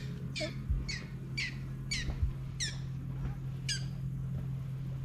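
A bird calling: about six short calls, each falling sharply in pitch, in quick succession, then stopping about four seconds in, over a steady low hum.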